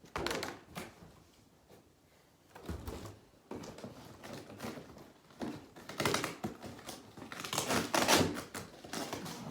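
Packaging and parts being handled during an unboxing: irregular rustling, scraping and knocks, loudest about two-thirds of the way through.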